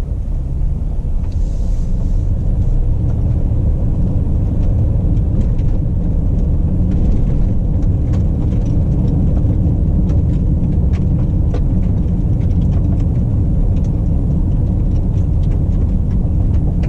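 Mercedes-Benz GLE Coupe on the move: a steady, loud low rumble of road and drivetrain noise, with scattered faint ticks. The rumble cuts off suddenly at the end.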